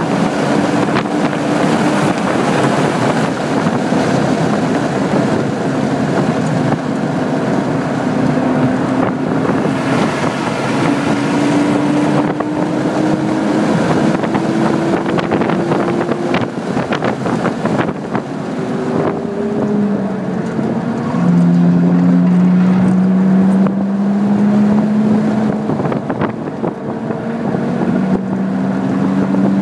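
Car engine pulling hard through the gears, its pitch climbing slowly in long rises and dropping at the shifts, with a louder, higher pull in the last third, under steady wind and road noise heard from inside the cabin.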